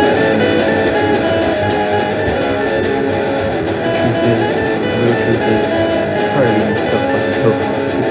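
Music led by guitar, strummed and plucked notes with a regular beat.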